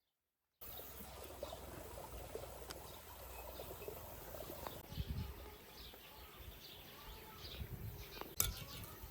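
Outdoor rural ambience: a steady low rumble with faint bird chirps, starting abruptly about half a second in after silence, with a sharp knock near the end.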